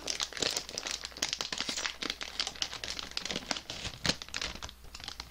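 Plastic potato chip bag crinkling as it is handled: a dense, irregular run of crackles.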